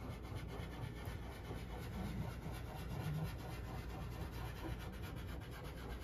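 A stick of white soft pastel rubbed over watercolor paper in small circular strokes: a steady, fine scratchy rubbing.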